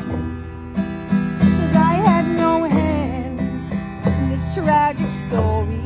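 Acoustic guitar strummed in a steady rhythm, with a sung melody held and wavering over it.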